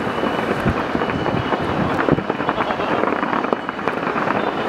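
Aerial fireworks display: a dense, continuous crackle of many bursts running together into a rumble, with a few sharper cracks standing out.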